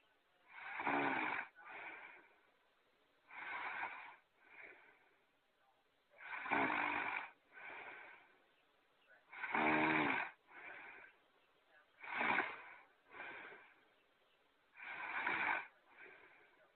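A character's snoring sound effect on a loop. There are six loud snores, one about every three seconds, and each is followed by a shorter, fainter breath out.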